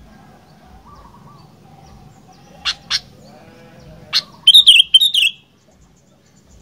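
Sooty-headed bulbul (kutilang) calling: a few sharp single notes around three and four seconds in, then a loud, quick warbling phrase just under a second long.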